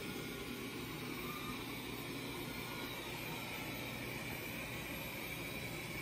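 Wyze robot vacuum running as it manoeuvres back to its charging dock: a steady whir with a faint high whine that grows a little stronger about halfway through.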